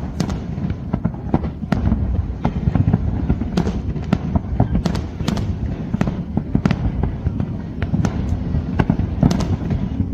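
Fireworks display: a fast, irregular run of sharp bangs and crackles over a continuous low rumble.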